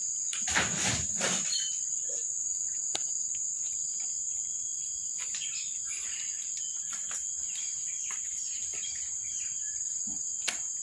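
Kittens eating shredded meat from a plastic tray, with small scattered chewing and tray clicks, over a steady high insect drone. A brief louder rustle comes about half a second in.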